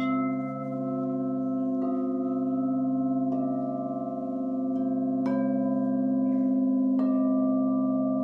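Crystal singing bowls ringing in sustained, overlapping tones, struck with a mallet about five times, roughly every one and a half to two seconds, each strike adding a fresh ring over the hum.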